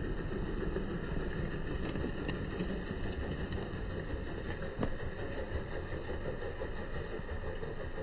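Steady low background rumble with no distinct events, and one faint click about five seconds in.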